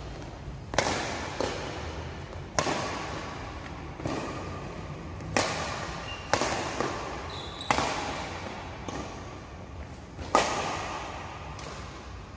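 Badminton rally: rackets striking the shuttlecock about once a second, each crisp hit followed by a short echo in a large hall, with the loudest hit about ten seconds in.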